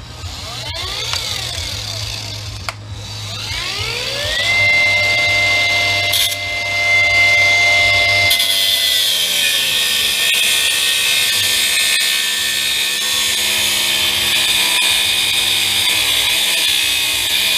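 High-speed power cutting tool revving briefly a couple of times, then spinning up to a steady whine. About halfway through it bites into the aluminum wiper-motor housing: a hissing cutting noise joins in and the pitch drops slightly under load, until it stops near the end.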